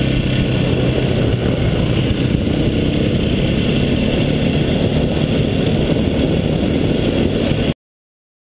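Enduro motorcycle engine running at a steady speed while riding a dirt track, heard close from the rider's own bike over a rush of wind and riding noise on the camera. The sound cuts off abruptly near the end into complete silence.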